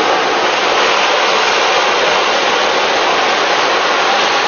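Steady, loud roar of rushing flood water, an even rushing noise that holds without change.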